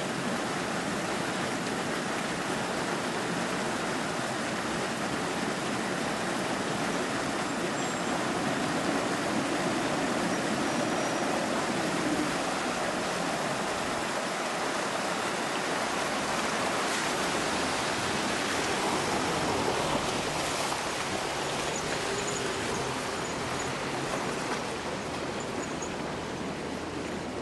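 Steady rushing and splashing of creek water, with a four-wheel-drive vehicle's engine running faintly underneath during a creek crossing.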